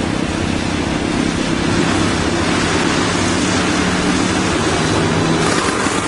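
Snowmobile engine running at a steady pitch, its sound shifting shortly before the end.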